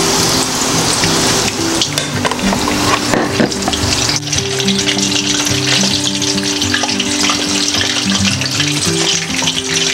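Coated chicken drumstick frying in hot oil in a pan: a steady, dense sizzle. Background music plays under it.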